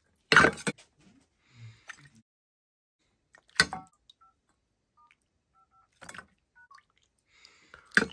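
Four sharp knocks or clatters about two to three seconds apart, the loudest about half a second in, with a few faint short beeps between them.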